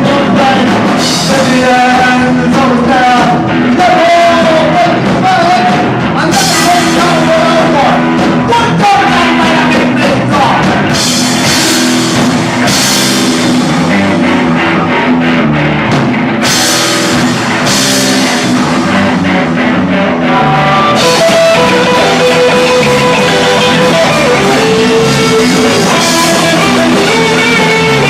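Live punk rock band playing loud: distorted electric guitar and a drum kit, with cymbal crashes hit again and again through the passage.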